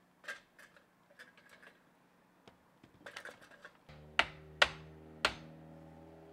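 Three sharp hammer strikes on the wooden fence rail, each about half a second apart, after a few light taps and clicks. Background music with sustained notes comes in just before the strikes.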